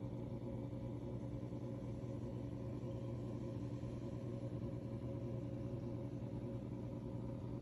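Simplex wall clock running with a steady low hum and no ticking.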